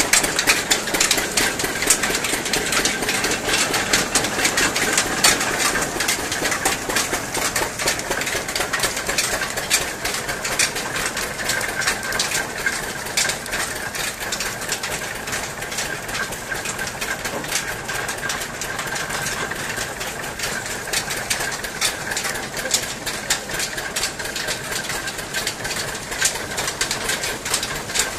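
Belt-driven sugarcane crushing mill running steadily under an engine, its flat belt, pulleys and geared rollers making a fast, even clatter as sugarcane is fed through.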